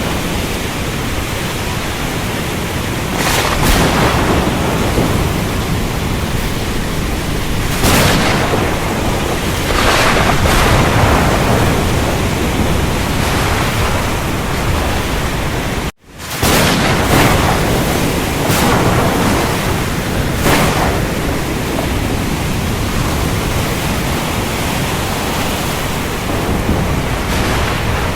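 Steady rain with rumbles of thunder that swell up several times. About halfway through, the sound cuts out for an instant and fades back in, like a join in a looped recording.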